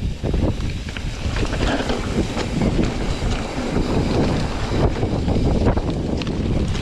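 Mountain bike descending a dirt singletrack: wind rushing over the microphone over a steady rumble of knobby tyres on the trail, with scattered clicks and rattles from the bike.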